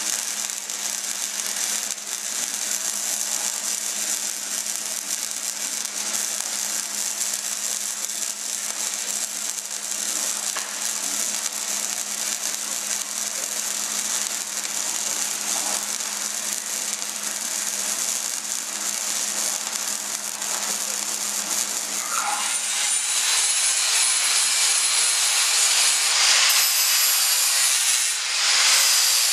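Arc welding on a steel 55-gallon drum: a steady crackle and sizzle over a low hum. Near the end it gives way to an angle grinder whining as it grinds the steel barrels.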